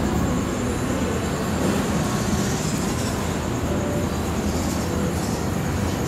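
Steady rumble and hum of a railway station platform beside a standing passenger train, with no distinct events.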